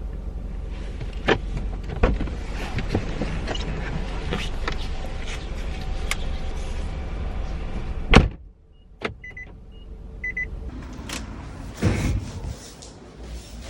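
Clicks and knocks of someone moving about inside a car over a low hum, then a car door shutting with a loud thump about eight seconds in. Short high electronic beeps follow twice, and there is another knock near the end.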